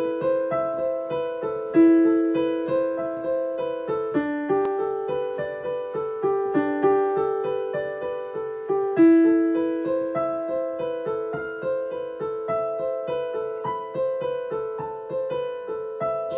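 Piano music: a steady run of single struck notes, about three a second, each fading after it is played.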